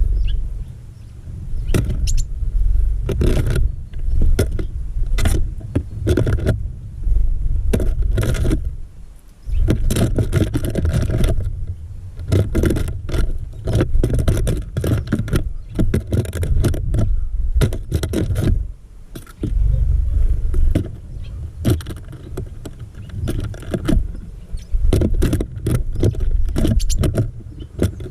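Wind gusting on the microphone of a GoPro mounted in a bird feeder, a heavy low rumble that surges and drops every few seconds, with many sharp clicks and scrapes against the feeder and camera housing.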